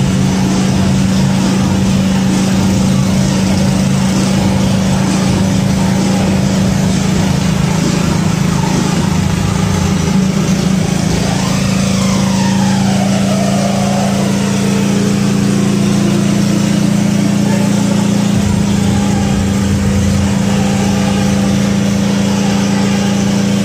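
Boat engine running at a steady pace with a constant low hum while the boat cruises across open water.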